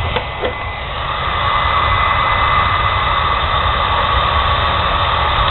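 Old 1500-watt hair dryer running steadily as it blows air into a woodstove to force-draft the fire: a steady high whine over a rushing hiss of air. Two small clicks come right at the start, and the sound grows a little louder about a second and a half in.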